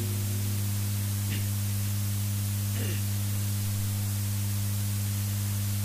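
Steady electrical mains hum with a hiss from a microphone and public-address system, with no voice on it.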